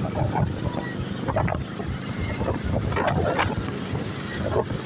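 Wind buffeting the microphone over a steady roadside traffic rumble, with a few short distant voices.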